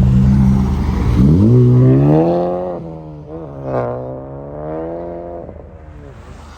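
A car engine rises from a steady note into a hard rev about a second in, shifts up once, then falls in pitch and fades as the car pulls away.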